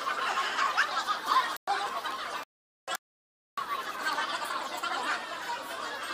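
Many voices chattering and laughing at once in a busy room, with no single voice standing out. The sound drops out completely twice: a moment at about a second and a half, then for about a second in the middle.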